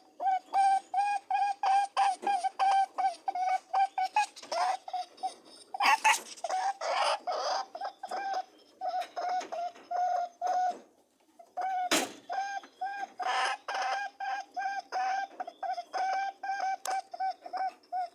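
Rabbit honking while mating: a long run of short, pitched honks, about four a second, broken by a brief pause a little past the middle. A few noisy bursts and a sharp click come in among the honks.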